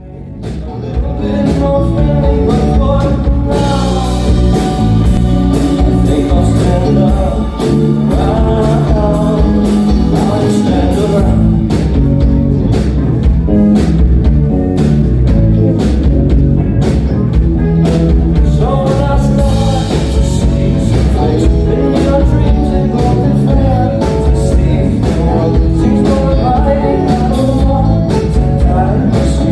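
Live band playing rock music with a singer over a steady drum beat.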